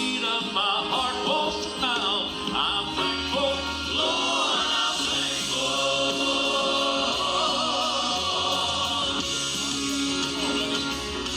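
Gospel song: a vocal group singing together over instrumental backing, voices wavering with vibrato on held notes.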